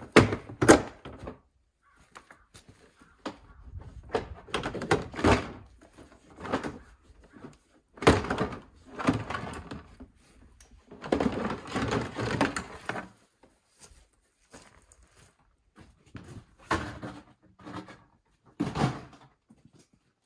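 Irregular knocks, thunks and rattles of a Honda ATV's plastic body parts and fittings being handled and worked loose during disassembly, with the loudest knocks right at the start and about eight seconds in.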